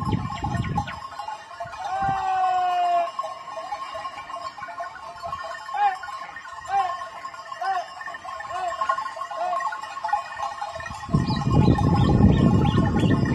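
A flock of sheep and goats bleating: one long falling call about two seconds in, then a run of short calls roughly once a second. A steady low rumble comes in near the end.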